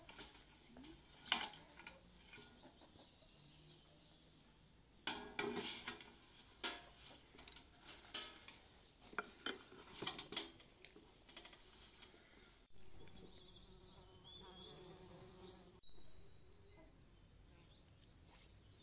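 Scattered clinks and light rattles of a wire grill rack and metal serving tray being handled while grilled fish is pulled apart, densest in the middle.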